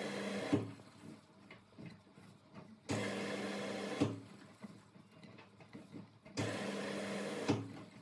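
Candy front-loading washing machine in its wash cycle: the drum motor hums and turns for about a second at a time, three times, with water and laundry swishing in the drum, each turn ending in a thump.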